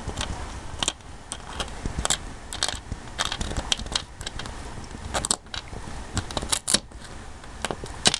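Metal tip of a small tool clicking and scraping on a burnt surface-mount OPA827 op-amp chip and its little perfboard adapter: a series of irregular sharp clicks and scratches.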